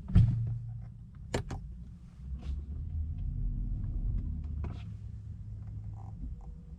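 Low rumble of a BMW 1 Series (F20) car running, heard from inside the cabin, with a faint steady hum and several sharp clicks and knocks. The loudest knock comes just as the rumble begins.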